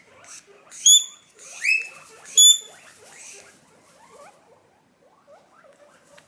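Guinea pig wheeking very loudly for food: three piercing high-pitched squeals in the first two and a half seconds, the middle one rising, followed by faint soft squeaks.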